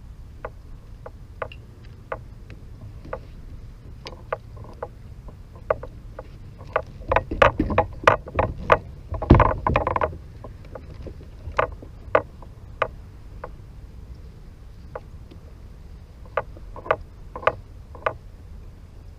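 Scattered sharp knocks and clicks against a fishing kayak's hull, thickest and loudest a little past the middle with one heavy thump, over a low rumble of wind on the microphone.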